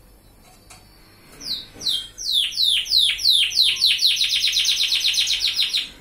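Recessive white canary singing: a run of down-slurred whistled notes, starting about a second and a half in, that quicken into a fast, even trill and stop abruptly near the end.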